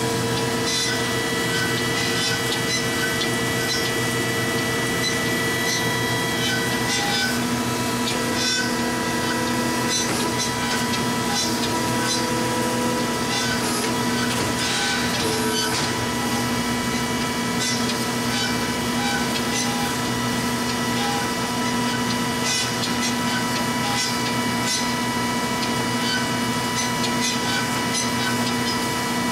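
Marvel 15A9 automatic horizontal band saw running: a steady machine hum of several held tones, with a light, regular ticking a little more than once a second.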